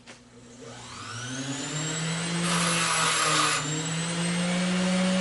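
Electric grinder motor spinning up with a rising whine, then running steadily. About halfway through there is a second of harsh grinding as the metal is ground to check that it is brass underneath.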